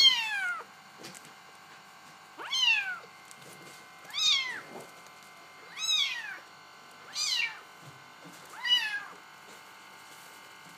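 Young Bengal kittens meowing: six high calls, each rising then falling in pitch, about every one and a half seconds.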